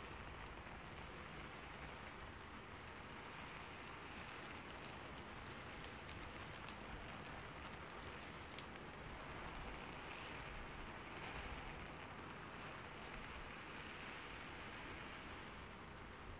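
A faint, steady hiss like rain, with a few light ticks in the first half.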